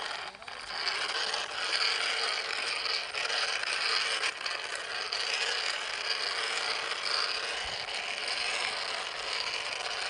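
Plastic toy dump truck rolling over rough dirt, its plastic wheels and body giving a continuous ratchet-like clicking clatter.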